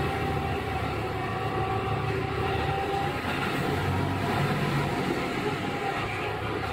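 Running sound aboard a KiHa 11 diesel railcar: the Cummins diesel engine's steady hum over wheel and rail noise as the car travels along, the engine note shifting slightly about halfway through.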